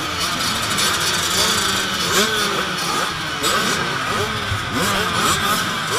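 Several youth dirt bike engines revving together, throttles blipped so their pitches rise and fall over one another.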